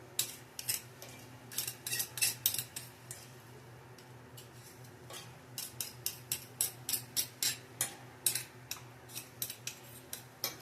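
A utensil clicking and knocking against a frying pan as seasoned potatoes are stirred, in uneven strokes with a pause of about two seconds midway. A steady low hum runs underneath.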